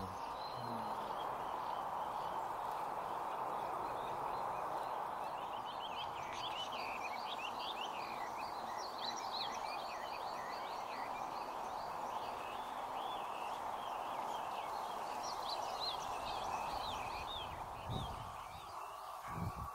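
Many quick, high bird chirps from small birds, from about six seconds in until near the end, over a steady dense background din. Two low thumps come near the end.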